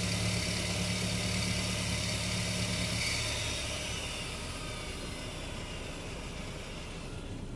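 Volkswagen Jetta MK4 1.8T turbo engine idling cold with a steady hum and a loud hissing whir. The hum cuts out about three seconds in and the whir dies away over the next few seconds, leaving a quieter idle. This is the cold-start noise going away.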